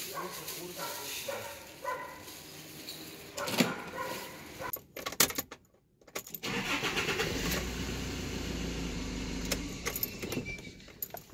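Handling noise and sharp knocks as someone gets into a car, then the car's engine starting about six and a half seconds in and running steadily with a low rumble.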